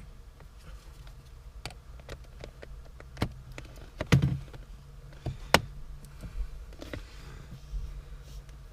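A few sharp plastic clicks and taps as a trim tool pries at the clipped-in shift boot surround on the console, the loudest about four and five and a half seconds in, over a low steady hum.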